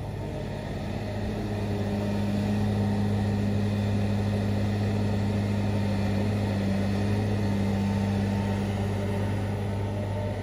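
Komatsu PC350LC hydraulic excavator's diesel engine running under digging load: a steady low drone that grows louder a second or two in and eases slightly near the end.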